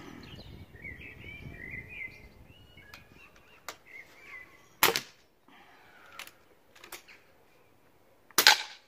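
Two sharp shots from a suppressed PCP air rifle, about three and a half seconds apart, the second louder. Small birds chirp during the first couple of seconds.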